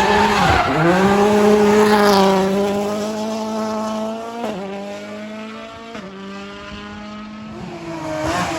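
Rally car engine running at high revs as the car passes. Its note dips briefly, then holds steady with two short breaks while it fades into the distance. Near the end a second car's engine rises as it approaches.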